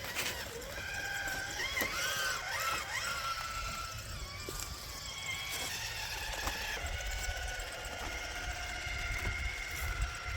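Traxxas TRX-4 RC crawler on Deep-Terrain Traxx rubber tracks: its electric motor and geared drivetrain whining, the pitch rising and falling with the throttle, over a low rumble.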